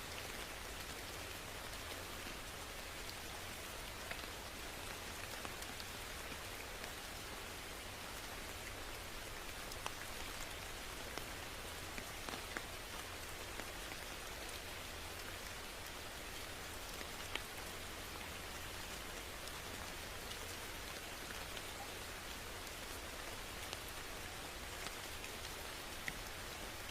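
Steady rain falling on a surface, with scattered louder individual drop ticks over a constant hiss and a low steady rumble underneath.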